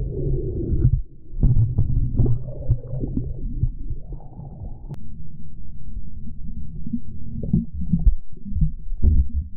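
Water moving around a GoPro Hero 10 held underwater, picked up by its microphone as a muffled low rumble with irregular thumps and clicks, including one sharp click about halfway through.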